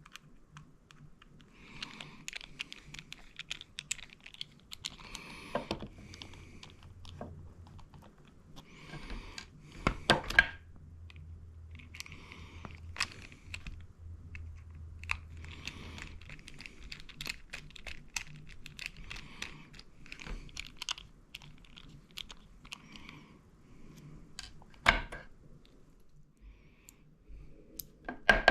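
Hand ratchet and small metal parts being handled: bursts of fine clicking with scattered light clicks, and two sharp knocks, about ten seconds in and near the end.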